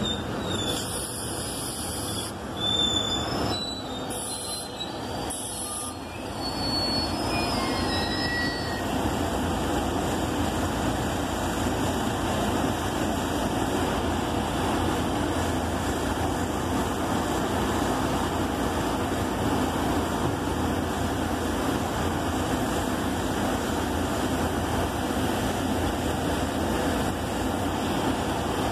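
SEPTA Silverliner IV electric commuter train coming to a stop, with several short high squeals from its brakes and wheels in the first few seconds. It then stands with a steady rushing noise.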